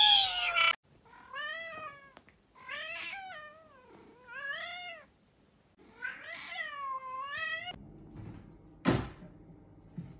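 Domestic cat meowing about five or six times in short, pitch-bending calls. After the meows comes a single sharp knock about nine seconds in.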